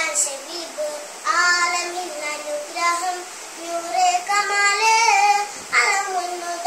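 A young girl singing a song in Malayalam on her own, without accompaniment, in several held phrases with short breaks between them.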